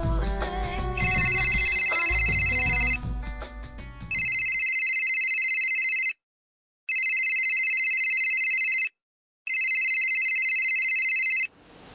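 Smartphone ringtone for an incoming call: an electronic ring in bursts of about two seconds with short breaks, four rings in all. The first ring plays over background music, which stops about four and a half seconds in.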